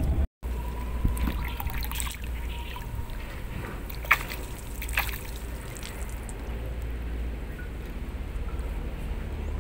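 Shallow canal water sloshing and trickling around an angler wading waist-deep, with a few sharp clicks about 1, 2, 4 and 5 seconds in.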